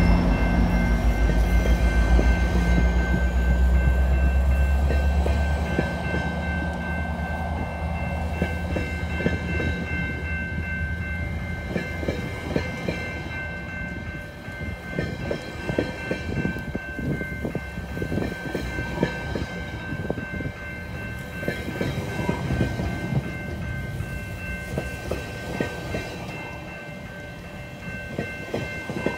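GO Transit bilevel passenger coaches rolling past close by as the train slows to a stop: a heavy low rumble for the first few seconds that fades, then uneven clicks of wheels over rail joints, getting quieter. Several steady high tones run through it all.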